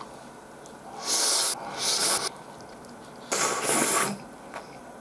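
A person slurping cold ramen noodles (hiyashi chuka) in four loud, airy slurps, two about a second in and two more past the middle.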